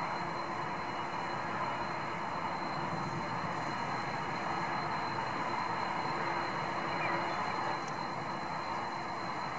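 Twin turbofan engines of a Boeing 767 freighter running at taxi power: a steady jet rumble with a thin, unbroken high whine.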